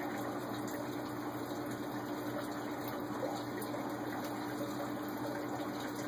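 Steady rushing background noise with a constant low hum, unchanging throughout.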